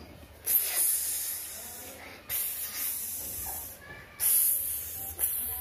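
Snake-like hissing in repeated bursts of one to two seconds each, with brief breaks between.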